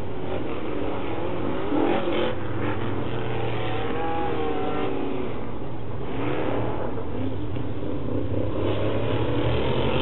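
Several off-road race trucks' engines revving as a pack races around a dirt track. The engine notes rise and fall as the trucks throttle through the jumps and corners.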